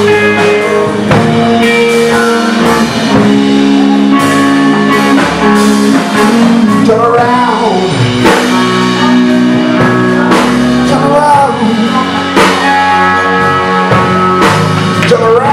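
Live blues-rock band playing: electric guitar over bass guitar and drum kit, with regular drum hits. A few bent guitar notes come about halfway through and again near the end.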